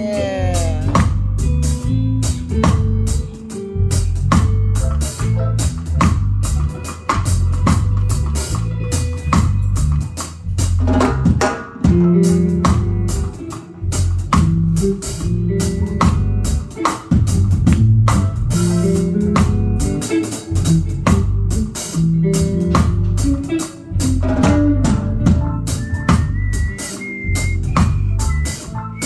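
Live band playing an instrumental groove, with drum kit and a busy bass line at the front.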